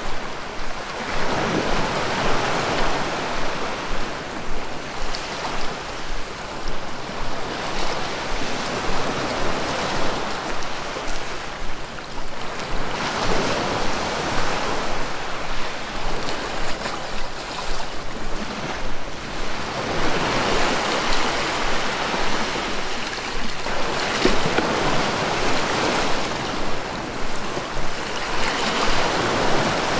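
Ocean surf: waves rolling in and breaking on a shore, a steady wash that swells into a louder surge every several seconds in an uneven rhythm.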